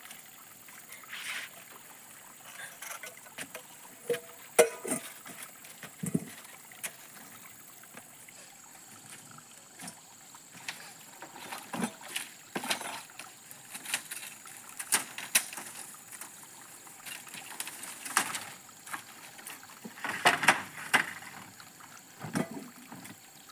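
Irregular knocks, clacks and rustles of bamboo slats and debris being stepped on and moved about, with a few louder knocks among them.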